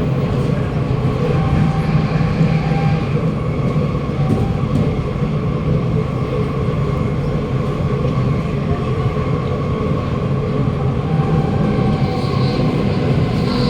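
Interior running noise of a Kawasaki Nippon Sharyo C751B metro car under way: a steady rumble with faint tones from the running gear. Near the end a high-pitched wheel screech sets in, the screeching on deceleration that the owner most probably puts down to worn-out wheels.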